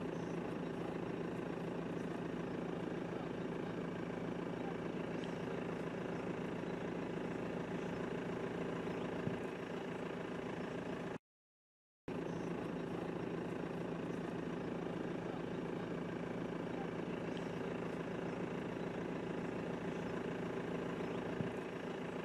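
A steady engine hum, like a vehicle idling, with a complete drop-out lasting under a second about eleven seconds in.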